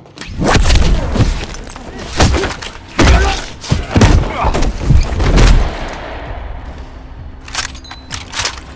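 Heavy dubbed-in impact sound effects of a body crashing down a stairwell: a quick run of loud thuds and hits over film score music, with a few sharp clicks near the end.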